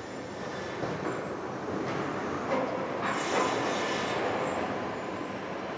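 Sawmill machinery and chain conveyors carrying lumber: steady mechanical noise with a few knocks.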